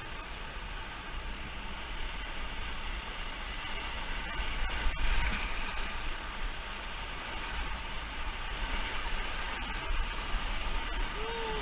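Steady rush of river whitewater, with a low flickering rumble of wind on the microphone. The rush swells briefly around a sharp knock about five seconds in.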